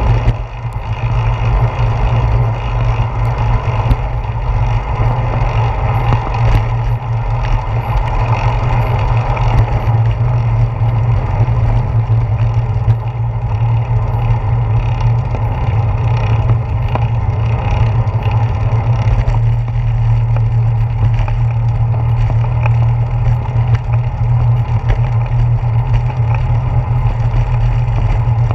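Steady low wind rumble and road vibration picked up by a handlebar-mounted camera on a moving bicycle, the air rushing past the microphone as the bike rolls along a paved path.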